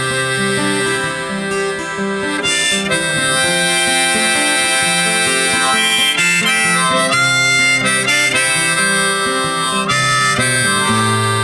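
Instrumental break in a song: a harmonica plays a melody of held notes over guitar accompaniment.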